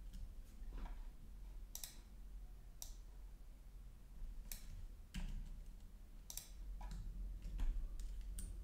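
About half a dozen separate sharp clicks of a computer mouse and keyboard, a second or so apart, over a low steady hum.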